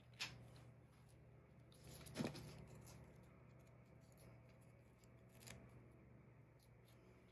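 Near silence with faint handling of small paper craft pieces and foam adhesive dots: a few soft clicks and rustles, the loudest about two seconds in, over a low steady hum.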